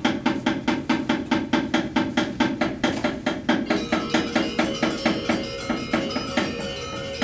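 Rapid, even knocking of the dalang's wooden knocker (cempala) on the puppet box, about five strokes a second, joined about halfway through by ringing metallophone tones of the wayang accompaniment.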